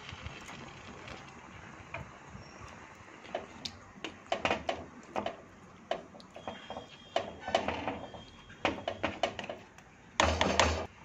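A spoon stirring mango pieces and masala gravy in a kadai, with a string of short scrapes and knocks against the pan and a louder scraping burst near the end.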